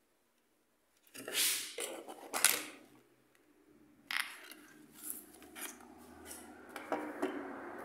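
Hands handling a plastic transforming robot figure: two loud rubbing scrapes about a second apart near the start, then a sharp click and a run of smaller clicks and rubbing as its parts are moved.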